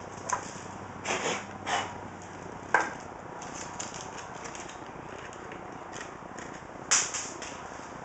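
Hands handling small PC-building hardware, a screwdriver and loose screws: a few short rustles and clicks in the first two seconds, a sharp click just before the three-second mark, and another rustle about seven seconds in, over a steady background hiss.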